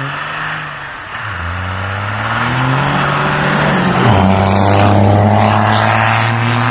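Ford F-series pickup's engine revving hard as the truck churns through snow on rubber track conversions. The pitch climbs for a few seconds, drops suddenly about four seconds in, then holds high.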